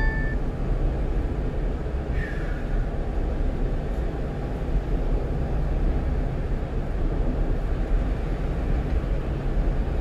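One-ton truck cruising at highway speed: steady low engine and road noise with no change in pace.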